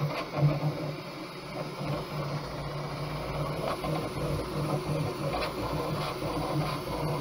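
Bambu Lab P1S 3D printer running mid-print: its toolhead motors whir in short, shifting runs as it lays down the first support layers, over a low hum that swells and fades.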